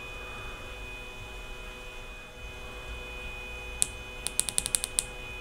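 Maeerxu M8 flashlight's tail clicky button pressed once, then clicked rapidly about eight times in a row to call up beacon mode, over a steady electrical hum.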